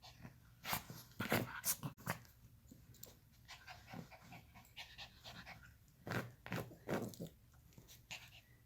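Maltese dog panting quietly in short, irregular breaths, in a cluster about a second in and again about six seconds in.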